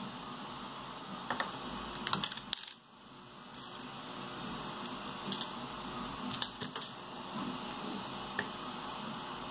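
Small metal nuts, screws and 3D-printed plastic parts clicking and tapping as they are handled and set down on a hard tabletop: scattered sharp clicks in a few quick clusters, over a steady background hiss.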